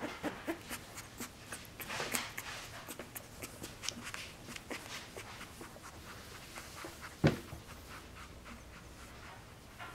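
Soft scratching and rustling on a fleece blanket as a young boxer puppy crawls and is stroked by hand, with many small clicks. One sharp thump about seven seconds in.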